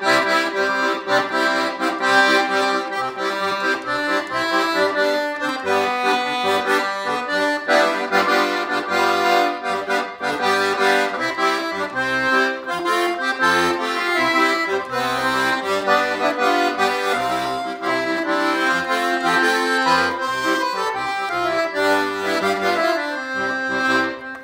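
Titano piano accordion played: an improvised melody on the right-hand keyboard over Stradella bass buttons sounding C, G and F major chords, with short bass notes on a steady beat.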